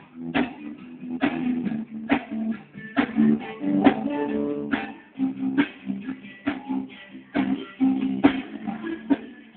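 Guitar strummed in a steady rhythm, roughly two strokes a second, with chords ringing between the strokes.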